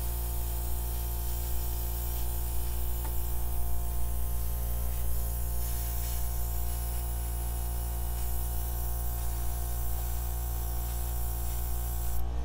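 Airbrush compressor running steadily with the hiss of air spraying from the airbrush; it cuts off just before the end.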